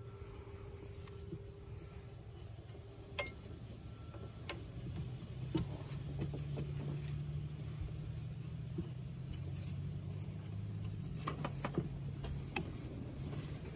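Light metal clicks and clinks of a wrench on the oil filter adapter bolt, a few scattered through, over a low steady hum.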